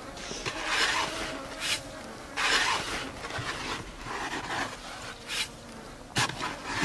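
Digging in sand: repeated rasping scrapes, roughly one a second, with quieter gaps between strokes.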